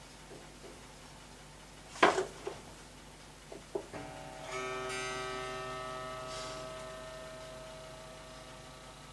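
A sharp knock about two seconds in and two light clicks, then grand piano strings ringing with several tones at once, sustaining and slowly dying away.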